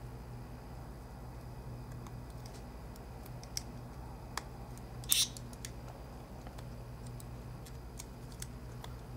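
Small scattered clicks and taps as a partly assembled iPhone 4 is handled, with one louder double click about five seconds in, over a low steady hum.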